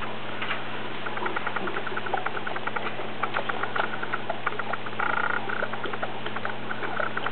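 Great Danes panting quickly and rhythmically, about six breaths a second, with a brief high whine about five seconds in, over a steady low hum.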